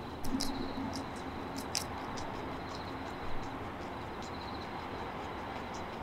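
Bell crickets (suzumushi) chirping: high, pulsing trills in stretches of a second or so, over a steady background hum. A few sharp clicks and a brief low sound near the start.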